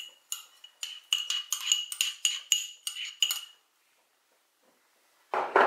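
Metal spoon knocking and scraping against a small ceramic bowl to tip out chopped green chillies: a quick run of ringing clinks, about three or four a second, that stops about three and a half seconds in.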